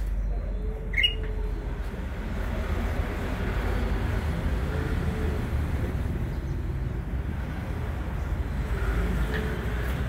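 A single short, sharp rising chirp from a caged male green leafbird (cucak hijau) about a second in, with a faint chirp near the end, over a steady low rumble.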